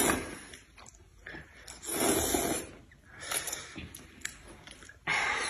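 A person slurping hot-and-sour glass noodles in several drawn-out, rushing slurps: one at the start, a longer one about two seconds in, a short one soon after, and another near the end.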